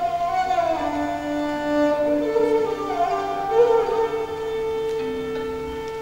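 A bowed spike fiddle with a round skin-covered body plays a slow solo melody of long held notes joined by slides. The line falls from a high note, climbs back, and ends on a low held note.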